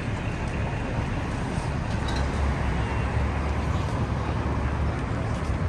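Busy city street ambience: steady traffic noise with a low rumble of passing vehicles.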